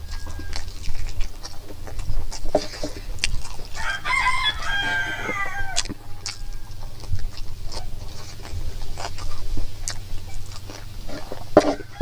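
A rooster crows once, starting about four seconds in and lasting about two seconds, over close, wet chewing and lip-smacking clicks from eating by hand.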